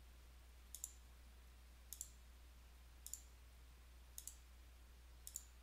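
Faint computer mouse clicks, about one a second, five in all, each a quick pair of ticks, over a low steady hum.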